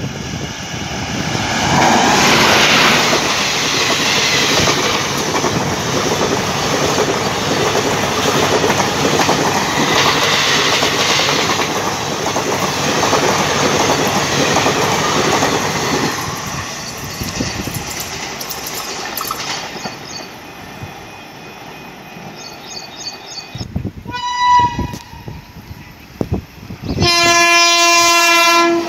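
Electric-hauled passenger train of ICF coaches rushing past close by: loud rolling and clickety-clack of wheels over the rail joints for about sixteen seconds, fading as it recedes. Near the end an approaching electric locomotive sounds its air horn, a short broken blast and then a long steady one.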